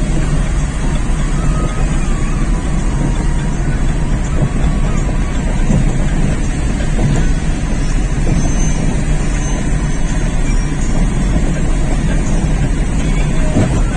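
Steady, even running noise from inside a moving vehicle, heaviest in the low range, with no breaks or sudden sounds.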